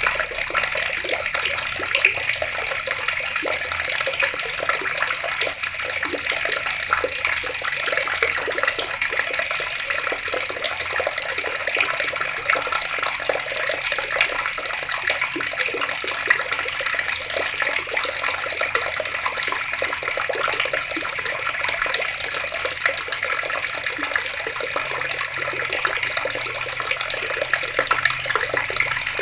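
Water running steadily from an outdoor tap, a continuous splashing stream.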